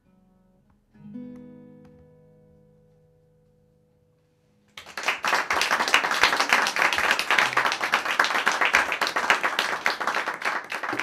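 A final chord on an acoustic guitar sounds about a second in and rings out, fading away. Then, a little before halfway, a small audience starts applauding, louder than the chord, with fast, uneven clapping.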